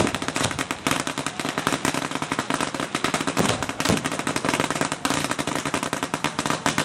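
Fireworks going off in a rapid, unbroken string of sharp bangs, many to the second, like machine-gun fire.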